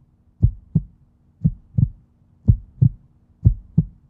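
Heartbeat sound effect: a steady lub-dub of paired low thumps, about one pair a second, four pairs in all, over a faint steady hum.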